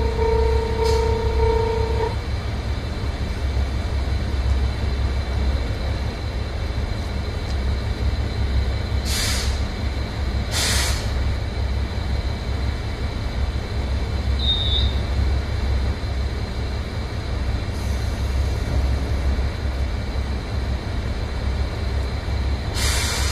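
Diesel railcars, including a JR Shikoku 1500 series, idling at a station with a steady low engine rumble. A steady squeal stops about two seconds in, and short hisses of compressed air sound twice around nine to eleven seconds in and again near the end.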